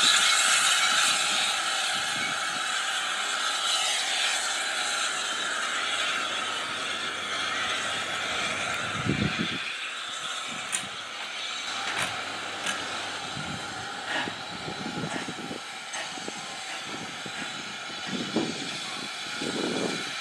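Steam locomotive moving off along the line, its steady hiss of steam and running noise slowly fading as it draws away.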